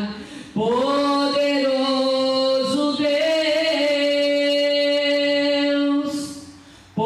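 A woman singing a worship song unaccompanied into a microphone, in long held notes. She pauses for breath about half a second in and again near the end.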